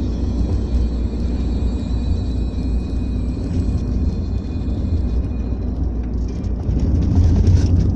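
Vehicle interior noise while driving: steady low engine and road rumble heard from inside the cabin, a little louder about seven seconds in.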